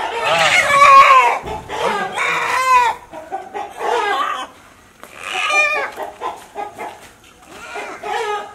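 Country chicken squawking loudly in alarm as it is caught and held by hand: a string of harsh calls with short pauses between them, several falling in pitch.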